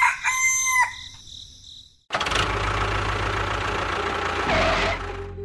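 A rooster crow ends within the first second. After a moment of silence, an engine starts running abruptly about two seconds in and runs steadily, with a change in its sound near the end.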